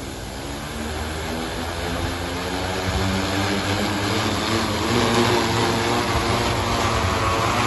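Multirotor agricultural spray drone's propellers spinning up and lifting it off the ground. The hum of the rotors grows louder over the first three seconds, then holds steady.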